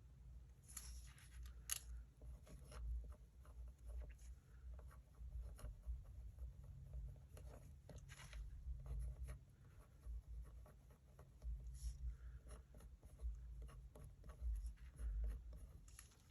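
Faint scratching of a pen writing on card stock, in short strokes with small clicks of the paper being handled, over a low steady hum.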